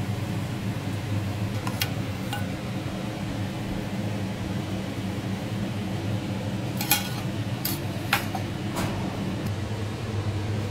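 A few light clinks of a metal spoon against a small steel saucepan and the plate, the loudest cluster about seven to nine seconds in, over a steady low hum.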